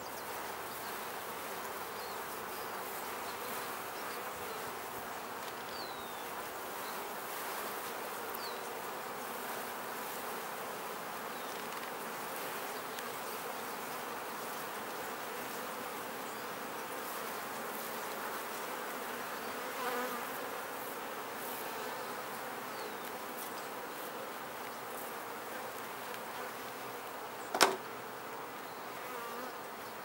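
Honey bees from an open hive buzzing in a steady, dense hum, with a single sharp knock near the end.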